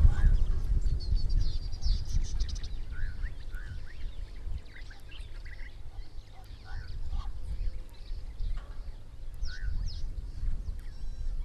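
Birds calling along a river: short calls repeated several times, with a burst of high chattering calls near the start and again about two seconds in, over a constant low rumble of outdoor noise.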